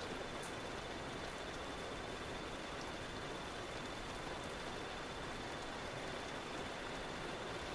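Recorded rain ambience: a steady, even hiss of rainfall, with a faint thin high tone.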